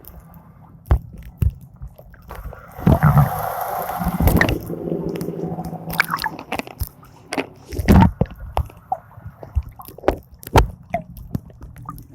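Water splashing and sloshing close to the microphone, with irregular knocks and thumps and a rushing hiss starting about three seconds in.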